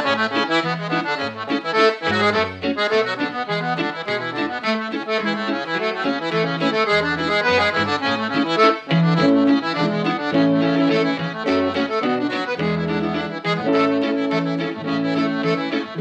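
Accordion playing a traditional tune, a busy melody over repeated bass notes and chords.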